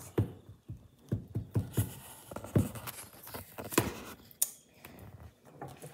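Irregular light clicks and taps of a doll's hard hands on a toy laptop's keys, in imitation of typing, with a couple of sharper knocks among them.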